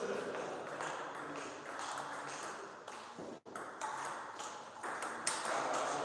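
Table tennis serve and rally: the ball clicks sharply off the rackets and bounces on the table in a series of quick hits. The sound cuts out briefly a little past halfway.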